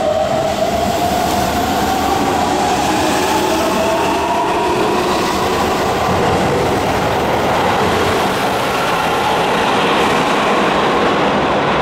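Keihan 10000 series electric train's Toyo Denki IGBT VVVF inverter, in its software-modified version, whining as the train accelerates: several tones rise slowly in pitch over steady running noise.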